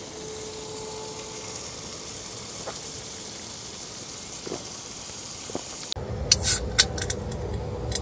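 Pork belly sizzling on a grill pan over a portable gas stove, a steady hiss. About six seconds in it gives way to a low rumble and a few sharp clicks and knocks.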